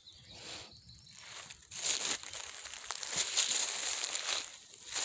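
Rustling and crunching of dry leaves and undergrowth underfoot as someone walks a woodland trail, faint at first and louder from about two seconds in.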